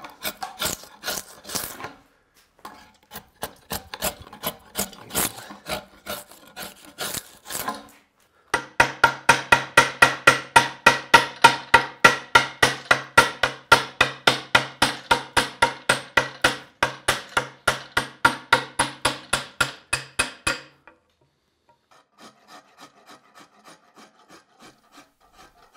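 Rasp strokes on an Osage orange bow limb, thinning the wood. The strokes are irregular at first, then settle into a long run of fast, even strokes, about four a second, and go lighter near the end.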